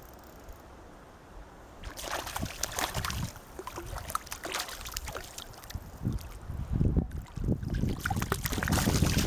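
Stream water sloshing and splashing at close range, starting about two seconds in, with crackling rustles and low thumps that grow heavier near the end.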